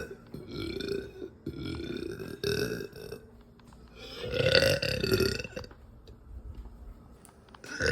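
A woman belching repeatedly: a run of deep burps, the longest and loudest about halfway through, with another beginning near the end.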